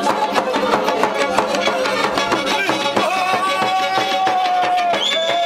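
Live horon dance music from a Black Sea kemençe and a davul bass drum: quick, even drum beats under the kemençe's melody, which settles onto long held notes about three seconds in.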